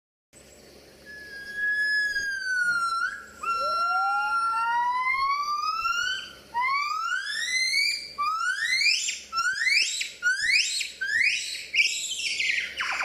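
Gibbons singing: a few long, held whistled hoots with rising glides overlapping them, building about halfway through into a quickening series of loud upward-sweeping whoops that ends in a falling sweep.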